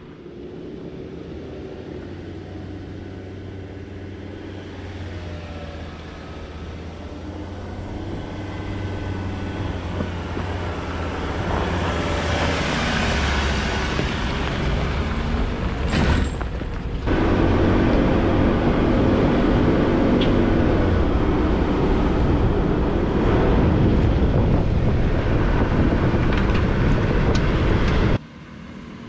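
A four-wheel drive's engine running as it drives a rough dirt track, with tyre and gravel noise, growing louder as it goes. The level jumps up suddenly about two-thirds of the way through and drops sharply near the end.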